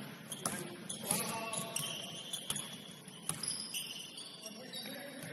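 Basketball game on an indoor court: sneakers squeaking in short high chirps several times, a few sharp knocks of the ball, and faint voices in the background.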